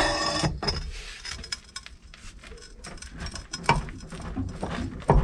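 Steel tools clinking and knocking: a pipe extension and breaker bar being handled and fitted together to gain leverage on a rusted hub nut. There is a short metallic ring at the start, followed by scattered clicks, with sharper knocks about three and a half seconds in and at the end.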